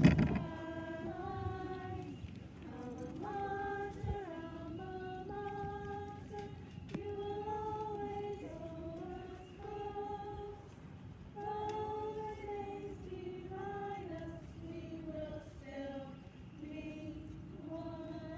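Voices singing a slow song together in held, sustained notes. A brief knock sounds right at the start.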